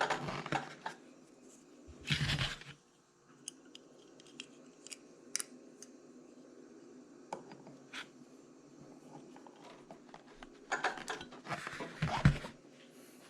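Scattered clicks, scrapes and rattles of hands handling a radio-controlled truck and its new wheels, with louder bursts of handling noise about two seconds in and again near the end.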